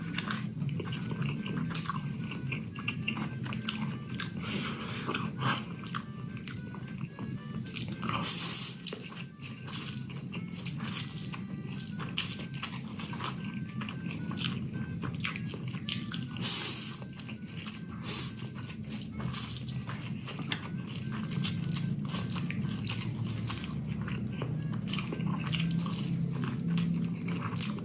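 A person eating close to the microphone: crunchy bites and chewing of spicy noodles and fried chicken, many bites in quick, irregular succession.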